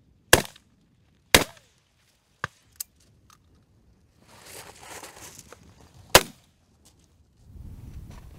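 Shotgun shots: two loud reports about a second apart near the start, two fainter, more distant shots soon after, and another loud report about six seconds in, with a brief rush of noise before it.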